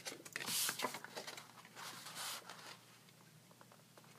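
Cardstock being handled and slid against paper on a work surface: two short spells of paper rustling, about half a second in and about two seconds in, then a few faint taps.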